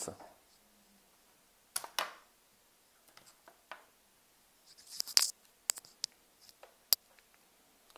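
Scattered handling noises: a brief rustling swish about two seconds in, then more rustling around five seconds and a few sharp, separate clicks.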